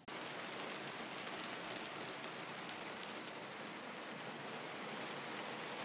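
Heavy rain falling steadily on a small sailboat, on the sun awning and mylar genoa stretched over it, heard from inside the cabin.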